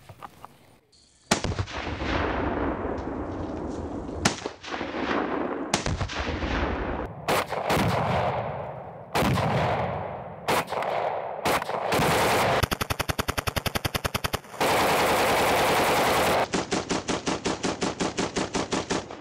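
AUG A3-CQC bullpup assault rifle firing on full auto: short bursts, each with a long ringing echo, then near the end long unbroken strings of rapid fire.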